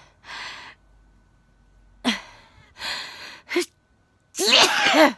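A woman's sneeze building up: several sharp, breathy gasping inhales, then a loud voiced sneeze near the end.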